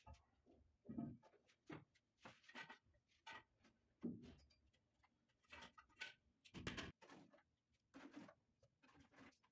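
Faint, scattered knocks and scrapes as a white marble stair tread is carried, set down on its mortar bed and shifted into place, with a louder knock about four seconds in as the slab meets the step.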